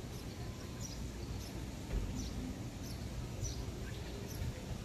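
Outdoor ambience: a low wind rumble on the microphone, with a small bird giving short high chirps about once a second.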